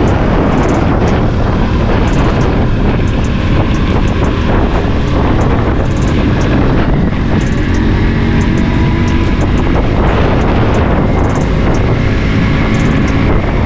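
Motorcycle being ridden uphill: a loud, steady rush of wind over the microphone, with the engine running under load beneath it. The engine note comes through more clearly in the second half.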